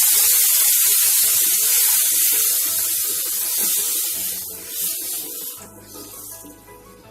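Milk sizzling and hissing loudly as it hits the hot ghee-roasted semolina and sugar in a kadhai. The hiss fades away over about five seconds.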